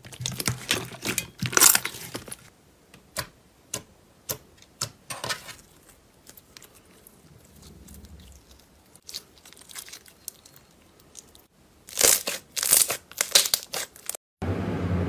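Hands kneading and pulling apart a fluffy slime, giving dense sticky crackling for the first couple of seconds. Then a glossy, stretchy slime is squeezed and folded between the fingers, with scattered small pops and clicks, building to loud crackly bursts near the end.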